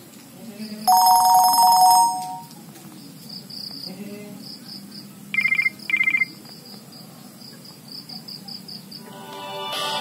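Nokia E63 ringtones previewed through the phone's speaker as the tone list is scrolled: a short chiming tone about a second in, two quick high beeps around the middle, and another musical tone starting near the end. Insects chirp steadily in the background.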